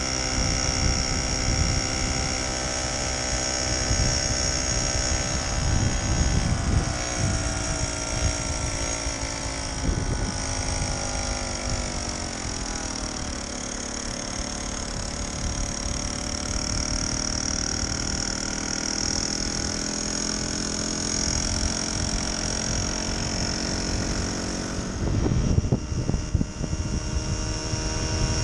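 1969 Solex 3800 moped's small 49 cc two-stroke engine running under way with a steady buzz. Its pitch drops about halfway through as the moped slows, then holds lower. Wind buffets the microphone near the end.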